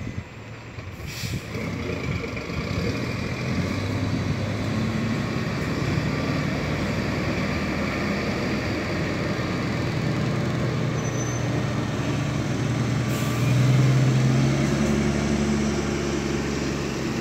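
Heavy diesel dump truck engine running under load, building up over the first couple of seconds and revving harder after about thirteen seconds, as it strains to pull a truck stuck in mud. Two short air-brake hisses, about a second in and again after about thirteen seconds.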